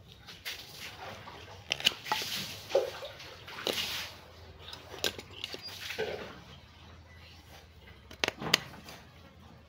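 Sharp snips of pruning shears and a concave bonsai cutter cutting through woody roots and stems of a dug-up tree, a cut every second or two with a quick run of three near the end, and rustling of the dry roots being handled between cuts.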